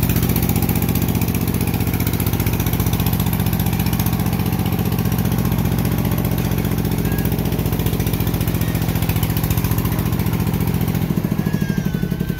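Công nông farm truck's single-cylinder diesel engine running steadily with an even rapid chugging, working under load as the rice-laden truck pushes through deep mud.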